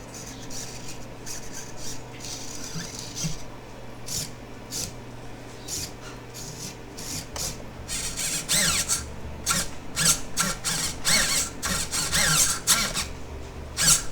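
Small hobby servos driving an InMoov robot's eye mechanism during a test: scattered clicks at first, then from about halfway many short moves with rising and falling whines and gear chatter.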